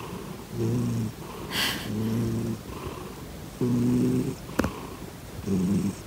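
Grey domestic cat purring loudly and deeply, the purr swelling in four stretches of under a second each with each breath. A single sharp click about two-thirds of the way through.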